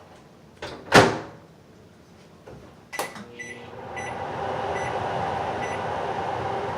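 Microwave oven being started: a knock about a second in and a click about three seconds in, then four short keypad beeps, and from about four seconds in the oven running with a steady hum.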